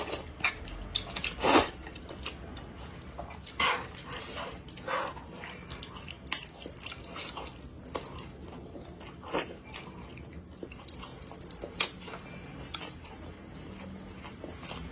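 Slurping and chewing of wide hand-pulled noodles in spicy sauce, in short wet bursts. The loudest slurp comes about a second and a half in, and quieter mouthfuls follow every few seconds.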